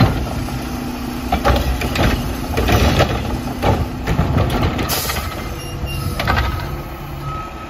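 Garbage truck engine running while the Curotto-Can's automated arm grabs a wheeled trash cart, lifts and tips it into the can, and sets it back down, with a string of sharp plastic clunks and bangs from the cart over several seconds.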